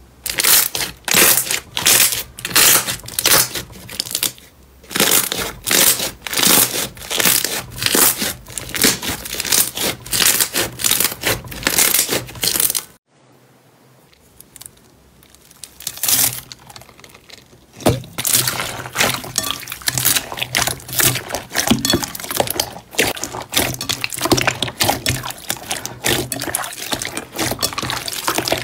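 Hands squeezing and folding glossy slime: loud wet squelches and pops, one or two a second. About 13 seconds in the sound cuts to a much quieter stretch as a hand presses into a bowl of foam beads. About 18 seconds in, hands start kneading slime packed with foam beads, and a dense stream of small crackling clicks runs from there on.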